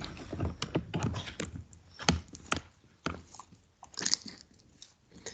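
Irregular sharp clicks and light knocks, close together at first and thinning out after about three seconds.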